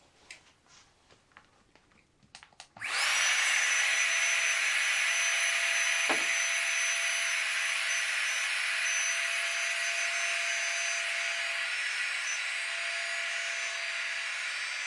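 Small electric air pump switching on about three seconds in and running steadily with a thin whine, inflating a Sea to Summit Ultralight Insulated air sleeping pad. Light handling clicks come just before it starts.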